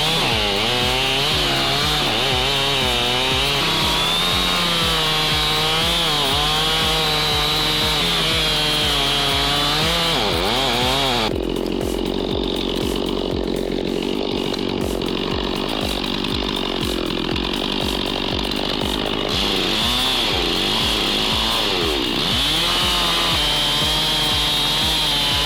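Chainsaws running hard in a cut, their engine pitch wavering up and down as they load and recover. About 11 s in the sound turns to a steadier, even whine, and the wavering pitch returns near the end.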